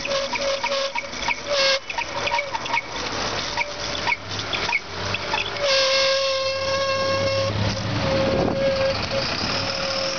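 Bicycle brake squealing at one fixed pitch: first in short pulses about four times a second, then in a long steady squeal about six seconds in. Wind noise on the microphone and passing traffic run underneath.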